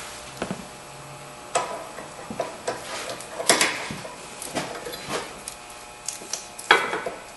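Wrench and ratchet clanking and clicking against the lower sway bar link nut as it is loosened, with irregular metal-on-metal knocks; the loudest come about a second and a half in, at about three and a half seconds, and near the end.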